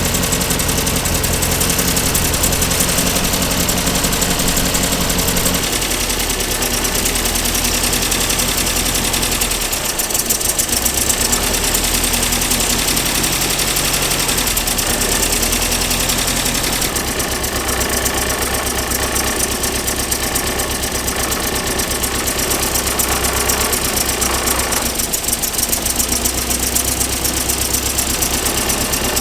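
1964 Triumph TR4's four-cylinder engine idling while its twin Stromberg CD175 carburettors are adjusted and balanced. The idle note shifts abruptly several times.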